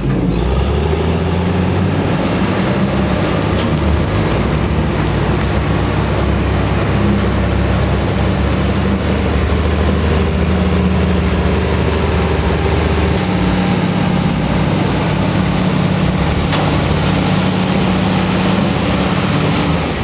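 Manitowoc 4600 dragline's engine running steadily under load as the machine digs and swings its bucket. It is a loud, continuous drone, and its low note shifts a little partway through.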